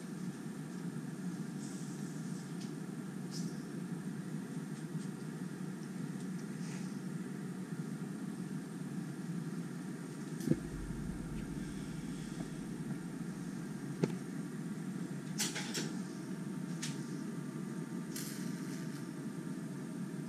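Steady low mechanical hum, with two small sharp clicks about ten and fourteen seconds in and a few brief faint rustles, as a small plastic container of colouring is handled and opened.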